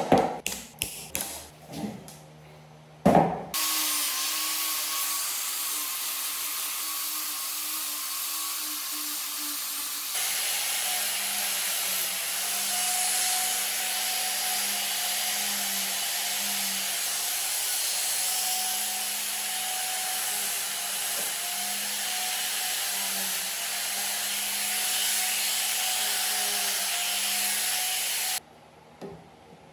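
A few sharp knocks, then an electric angle grinder runs steadily, trimming protruding bamboo pegs flush with a bamboo frame. Its pitch drops a little about ten seconds in, and it cuts off abruptly near the end.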